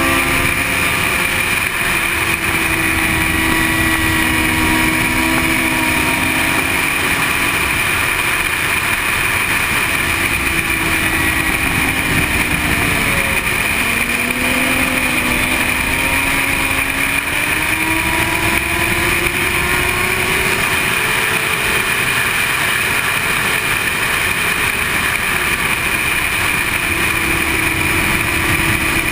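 Sport motorcycle engine at speed, its pitch rising and falling as the rider opens and closes the throttle, with a deep dip about thirteen seconds in, over a steady rush of wind on the bike-mounted camera.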